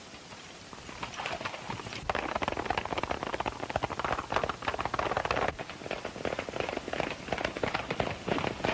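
Hoofbeats of several horses galloping on a dirt trail, a rapid clatter that gets suddenly louder about two seconds in.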